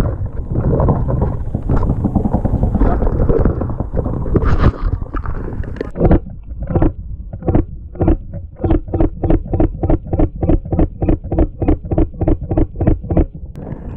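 Paintball marker firing close to the microphone: a few single shots, then a rapid steady string of about four to five shots a second in the second half. Before the shooting, wind buffeting the microphone.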